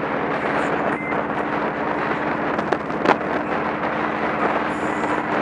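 Motorcycle engine running steadily at cruising speed, with wind rushing over the camera's microphone. Two short sharp clicks sound near the middle, the second the loudest.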